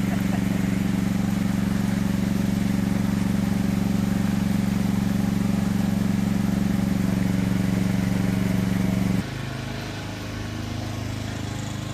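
A steady motor drone with an even, unwavering pitch, like a small engine running at constant speed. About nine seconds in it drops abruptly to a quieter, lower drone.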